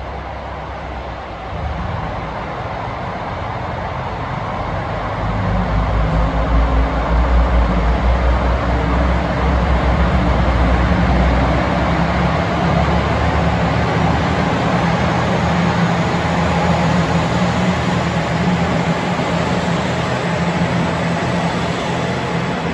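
Three-car set of KiHa 120 diesel railcars pulling in and passing close. Engine drone and wheel-on-rail noise get louder at about two seconds in and again at about five seconds, then hold steady.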